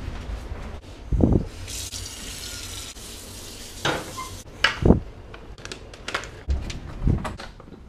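A kitchen tap running into a saucepan, with several sharp knocks as the pan and other things are handled at the stove and counter.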